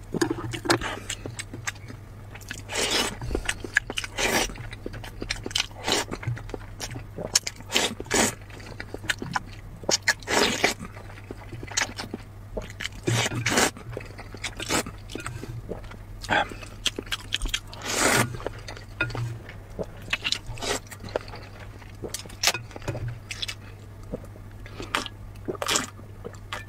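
Close-up eating sounds: noodles slurped from a bowl of spicy broth, with chewing and smacking in between, in irregular bursts, some of them long slurps. Near the end the broth is sipped straight from the tilted bowl. A steady low hum runs underneath.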